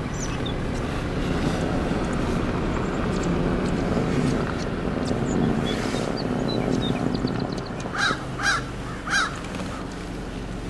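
Steady low rumble of a car idling, heard from inside the cabin, with a crow cawing three times near the end.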